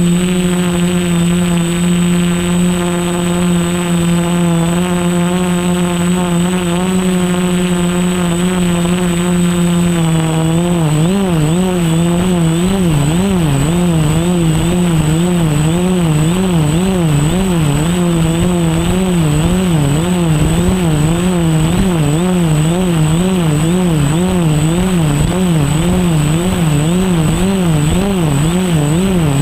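Quadcopter motors and propellers running with a steady drone. About ten seconds in the pitch starts to waver up and down rhythmically, roughly one and a half times a second, as the motor speed rises and falls.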